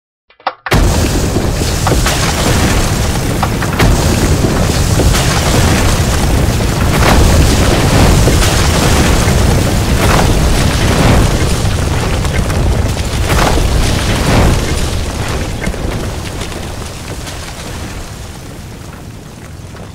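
A deep, loud rumbling roar that starts abruptly about a second in, with surging crashes every second or two, then slowly dies away over the last few seconds: a sound effect for huge angular structures rising up out of the ground.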